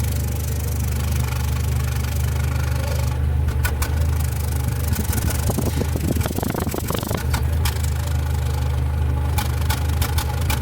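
Nissan Platina's 1.6-litre four-cylinder engine idling unevenly, with irregular sharp pops from the exhaust: a misfire, which the mechanic puts down to a failing spark plug or ignition coil.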